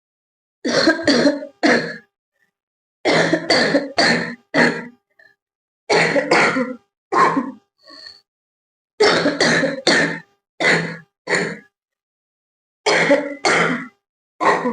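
A young woman coughing on purpose in five runs of three to five quick, loud coughs, with short pauses between the runs. Her coughs are forced rather than from a real urge, and her throat is already slightly hoarse.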